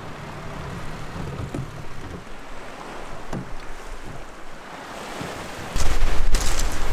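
Sea and wind ambience, then wind buffeting the microphone loudly from a little under six seconds in.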